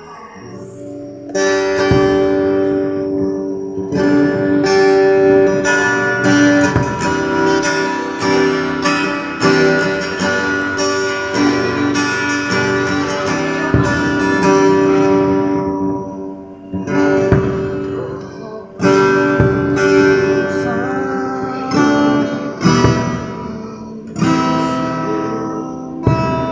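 Acoustic guitar strumming chords, with a few short breaks between phrases.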